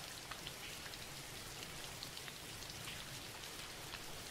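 Steady rain falling, a soft, even hiss with scattered faint drop ticks, playing as a background track.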